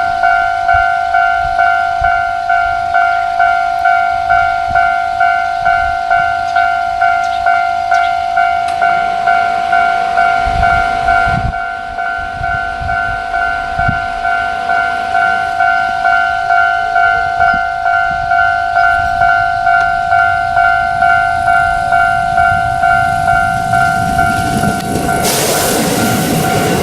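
Japanese level-crossing warning bell ringing in a steady two-tone clang, about one and a half strikes a second. About 25 seconds in, a train rushes through the crossing at speed and its noise swamps the bell.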